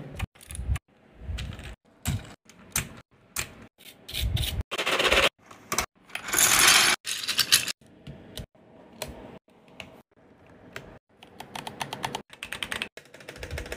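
Mechanical keyboard keys clacking in quick clusters of typing, broken by abrupt cuts, with a louder, denser stretch of clatter about five to seven seconds in.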